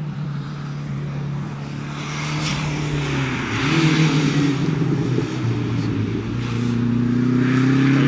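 Renault Super 5 rally car engine revving hard and getting louder as it approaches on a gravel road, the pitch dropping at gear changes about three and a half and five and a half seconds in, over a hiss of tyres on gravel.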